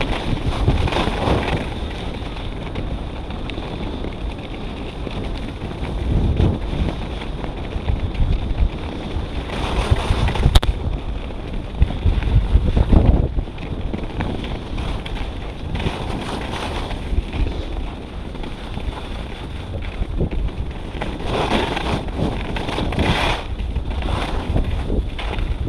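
Wind rushing over the camera microphone of a skier descending at about 50 km/h, with skis hissing and scraping on hard-packed snow through the turns. There are louder surges about ten and thirteen seconds in and again near the end.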